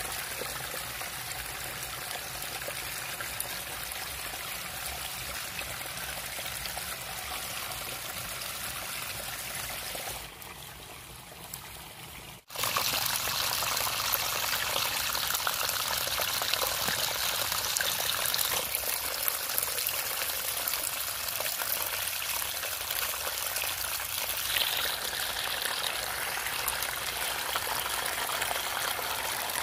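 Shallow rainwater runoff running and trickling through grass and weeds over muddy ground. The sound is steady, dips quieter for a couple of seconds about a third of the way in, then cuts off sharply and comes back louder.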